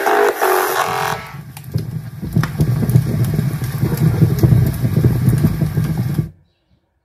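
LG XBOOM RN7 party speaker playing bass-heavy electronic music at full volume. A melodic synth section gives way about a second in to a deep, rumbling bass passage, which cuts off suddenly near the end.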